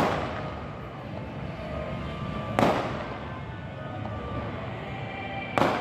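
Three firecracker bangs, roughly three seconds apart, each sharp with a short fading tail, over steady background noise.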